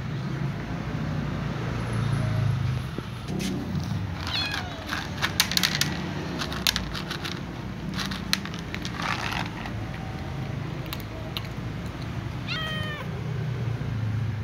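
Cats meowing while begging to be fed: a meow about four seconds in and another near the end, with a run of sharp clicks and taps in between.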